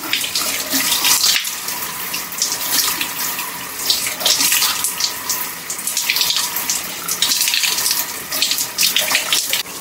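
Shower water running and splashing, with irregular splashes as hands scoop water and scrunch it into wet hair.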